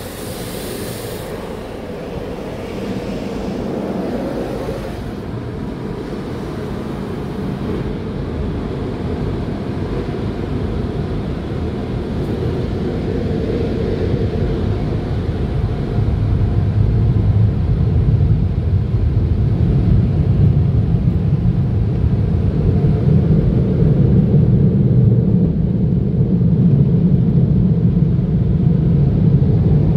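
Automatic tunnel car wash machinery heard from inside the car. A hiss of spraying water at first, then a steady low rumble that grows louder over the second half.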